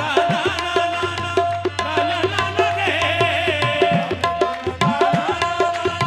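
Qawwali music: a harmonium melody over a steady tabla beat.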